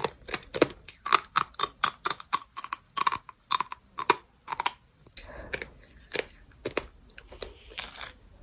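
Repeated sharp, gritty crunches of compressed sand being broken up, about two or three a second, growing sparser and softer after about five seconds.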